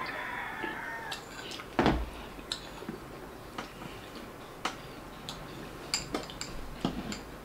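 Metal spoon clinking and scraping in a small ceramic bowl, with scattered sharp clicks and eating sounds, and a heavier knock on the table about two seconds in.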